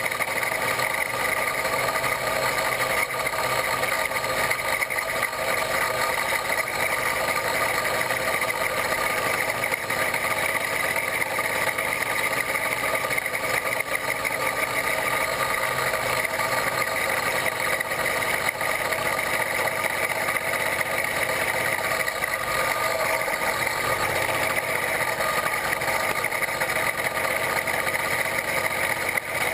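A 66/80cc Chinese two-stroke bicycle kit engine running at a steady cruising speed, its pitch holding level while the motorized bicycle rides along.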